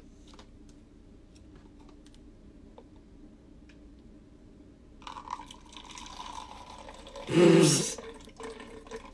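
Water being drained off from a paper cup, a soft trickle starting about halfway through with a louder gush near the end; light handling clicks before it.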